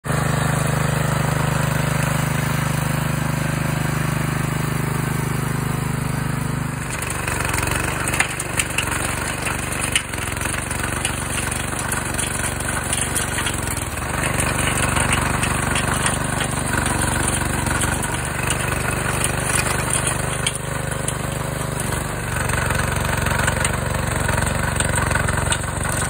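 Small gasoline engine of a garden tiller running steadily. About seven seconds in, the tiller begins working the ground and the sound turns rougher, with rapid knocking and scraping over the engine as the tines churn through dry grass and soil.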